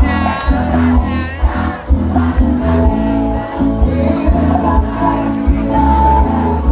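Live sertanejo concert music over a loud PA: a pounding bass beat and held keyboard notes, with voices shouting and singing over it in the first second or so and a crowd singing along.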